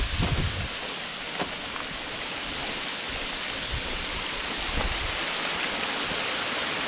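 Snowmelt water falling down a granite rock face and splashing onto the rocks below: a steady rushing hiss. A few low thumps near the start.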